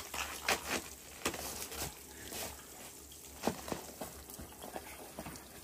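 Irregular crunching footsteps on snow and frozen, gravelly ground, a few sharp crunches spaced unevenly over a faint steady hiss.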